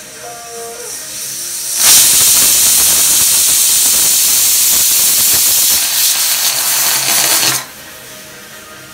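Stovetop aluminium pressure cooker whistling: steam blasts out under the lifted weight valve as a loud, steady hiss that builds over the first two seconds, holds for about six seconds and then cuts off sharply. This is one of the whistles counted to cook the grated carrots in milk under pressure, and carrot-and-milk froth is forced out around the weight.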